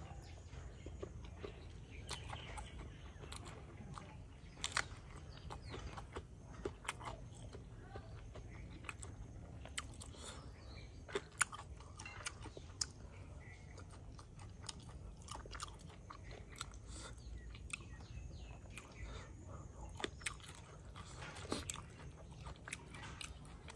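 Close-miked chewing of fried silkworms and spider eaten with rice: wet mouth sounds with many irregular sharp crunches and clicks, over a steady low rumble.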